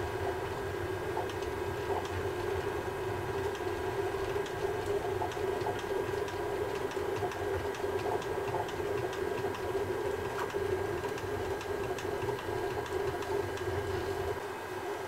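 Bambu Lab A1 3D printer printing: its stepper motors and fans run with a steady hum, and faint ticks come through now and then.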